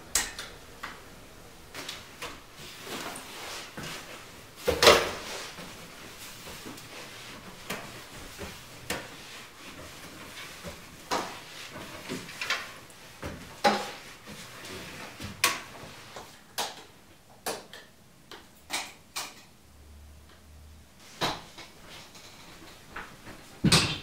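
Separate household knocks, clicks and footsteps in a wooden house: a wall switch clicking at the start, and steps on open wooden stairs. The knocks come irregularly, about one every second or two, the loudest about five seconds in.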